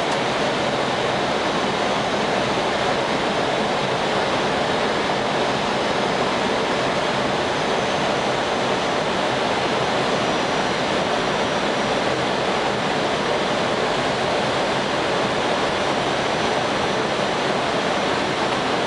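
Steady, even rushing noise on an Airbus A320-200 flight deck during approach: air streaming over the nose and windscreen, mixed with the running engines.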